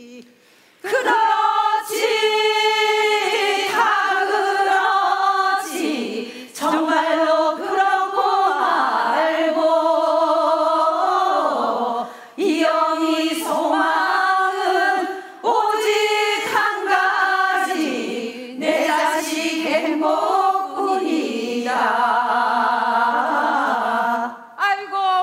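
Group of women singing a Korean folk song (Gangwon Province minyo) together, in phrases of a few seconds each with short breaths between them. The singing starts about a second in.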